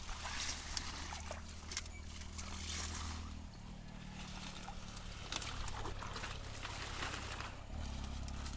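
Shallow muddy pond water sloshing, trickling and splashing in short irregular bursts as a person wades barefoot and pulls up clumps of water hyacinth by hand. A low steady hum runs underneath.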